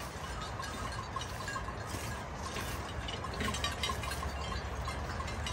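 Bells hung on the necks of grazing sheep tinkling faintly and irregularly, over a steady low rumble.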